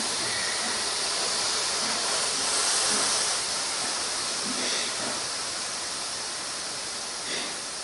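Steam hissing steadily from a damp towel under a hot iron pressed on a carpet repair, loudest about three seconds in and easing slightly toward the end.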